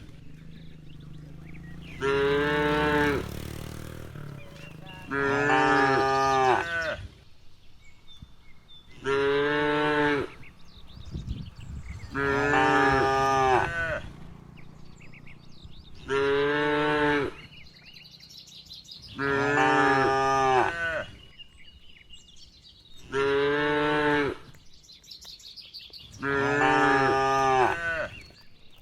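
Cow mooing over and over: eight long, drawn-out moos at an even pace, about one every three and a half seconds.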